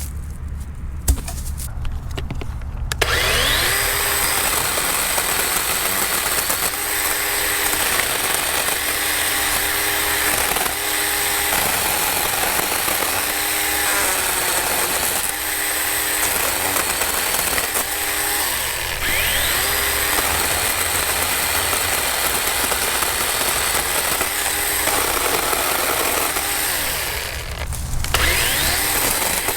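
DeWalt cordless battery chainsaw cutting through branch wood, starting about three seconds in; its motor pitch dips each time the chain loads in the cut and rises again as it frees, with a brief pause near the end. A steady low hum runs underneath.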